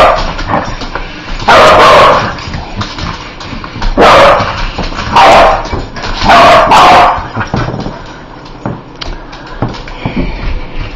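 A dog barking in loud outbursts, about five of them spread over the first seven seconds, some held or run together for half a second or more.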